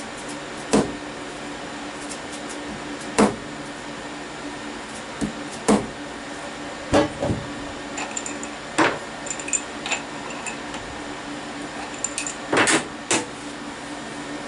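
A soft-faced dead-blow hammer knocking a workpiece down in a milling-machine vise to seat it: about eight short sharp knocks a few seconds apart, some close in pairs, with small clicks between them. A steady machine hum runs underneath.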